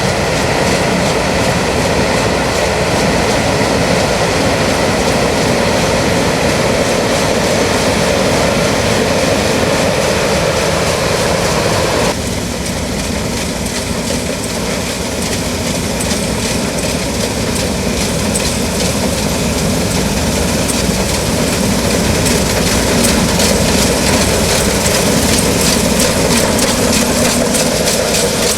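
New Holland CX8090 combine harvester on Poluzzi crawler tracks running steadily while harvesting rice: engine and threshing machinery. The sound shifts abruptly about twelve seconds in, then runs steadily on.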